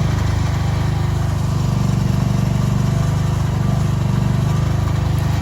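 Engine of a piece of earth-moving equipment running steadily at an even speed, with a fast, regular pulse.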